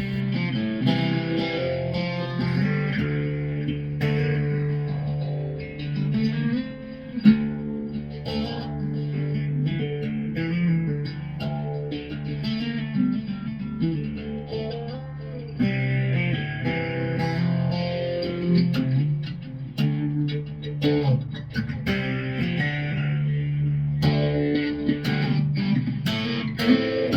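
Background music led by guitar, with plucked notes over a steady bass line.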